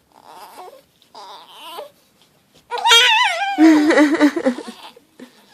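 Baby vocalizing: soft babbling, then about two and a half seconds in a loud, high-pitched wavering squeal that drops into lower, choppy cries.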